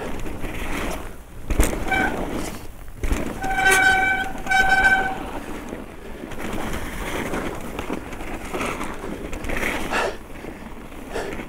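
Mountain bike brakes squealing: a short squeal about two seconds in, then two longer, steady squeals around four and five seconds, over the rushing rumble of the tyres rolling on snow, with a couple of sharp knocks from the bike.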